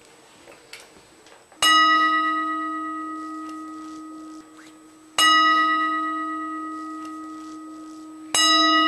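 Buddhist bowl bell (kin) struck three times, about three and a half seconds apart. Each stroke rings on with a low hum and several higher overtones, fading slowly until the next.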